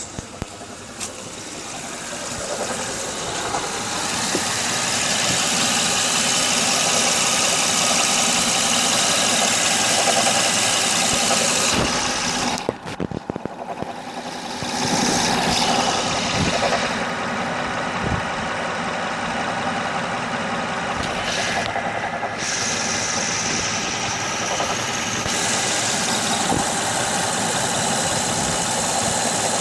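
2006 Honda Odyssey's 3.5-litre V6 engine running with a knock. The knock is still there after a new water pump, timing belt, timing belt tensioner and pulleys, and power steering pump, and its cause is unknown. The sound grows louder over the first few seconds and briefly drops away about halfway through.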